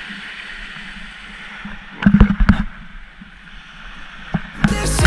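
Small waves lapping on a sandy beach, a steady wash of water, broken about two seconds in by a few loud thumps. Music begins near the end.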